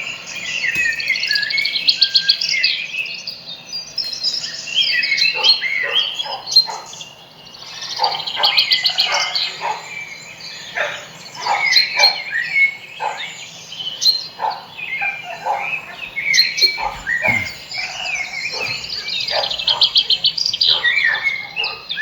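Many birds singing and chirping at once: a dense chorus of overlapping rapid trills and short, sharp falling calls.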